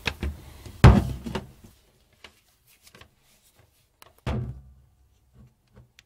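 Handling of the Parkside multitool's plastic housing: a few knocks and thumps, the loudest about a second in and another just after four seconds, with small clicks between. The tool itself is not running.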